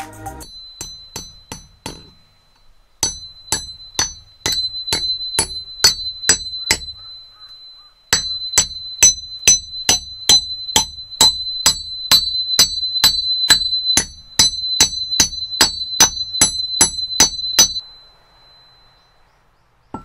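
Hatchet striking repeatedly, about two blows a second in runs broken by short pauses, each blow a sharp metallic clang with a high ring that carries through the series.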